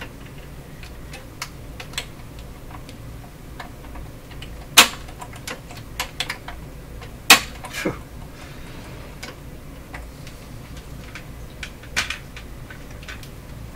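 Irregular mechanical clicks and clacks from the Bang & Olufsen Beocord 2000 De Luxe reel-to-reel tape recorder's transport mechanism, its sliding metal plates and levers worked by hand with the power off. The loudest clacks come about five and seven seconds in, with another near the end.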